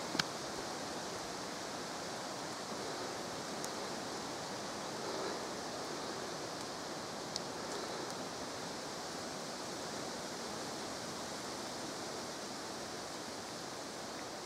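Steady, even hiss with a few faint clicks.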